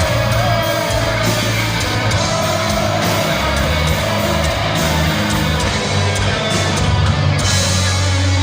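Heavy metal band playing live, with distorted electric guitar over steady, shifting bass notes, as a rock song gets under way.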